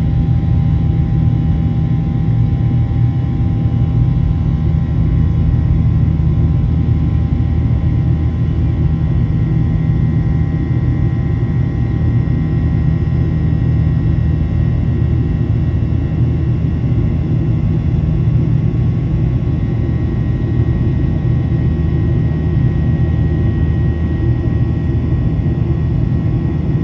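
Boeing 737-800 cabin noise: its CFM56-7B jet engines and the airflow make a steady, loud low rumble, with a few faint steady whining tones above it.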